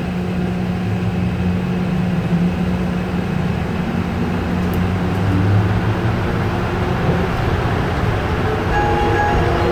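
Automated airport people-mover train running through a tunnel, a steady rumble of running noise with a low hum throughout. Near the end a few higher steady tones join in.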